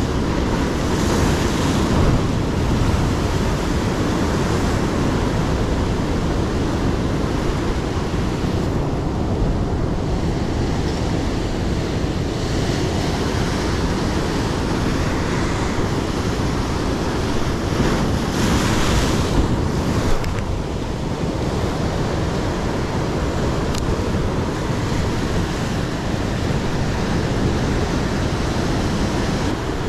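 Heavy ocean surf breaking and washing over rocks, with wind buffeting the microphone. The rushing hiss surges louder about a second in and again about two-thirds of the way through.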